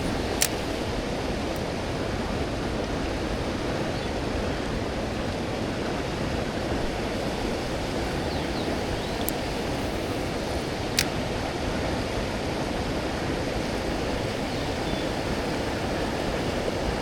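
Mountain stream water rushing steadily, with a sharp click shortly after the start and another about eleven seconds in.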